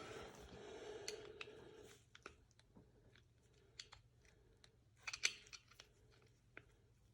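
Small metal rifle parts being handled during cleaning: a scraping rub for about the first two seconds, then scattered light clicks and taps.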